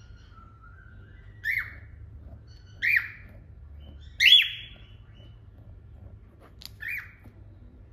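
Cockatiels calling: a soft, quiet warble at first, then four loud, short chirps that each drop in pitch. The third chirp is the loudest and longest. A faint click comes just before the last one.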